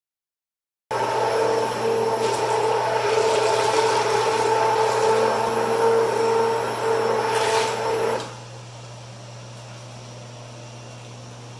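Electric hand (immersion) blender running steadily with a whining motor tone, churning besan, yogurt and water into batter; it switches on about a second in and is switched off about eight seconds in, leaving a low steady hum.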